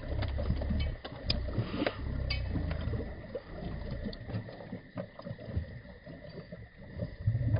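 Several beagles lapping and slurping water from a cooler, with irregular wet clicks and splashes, the dogs thirsty after running in the heat. A low rumble comes and goes underneath.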